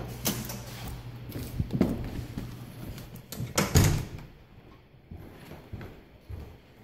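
An apartment entry door is opened and shut, closing with a heavy thud about four seconds in after a few lighter knocks. A low steady hum stops once it is shut.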